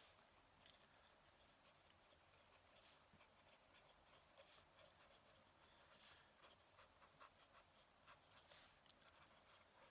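Fountain pen nib scratching on paper in short, faint strokes of handwriting.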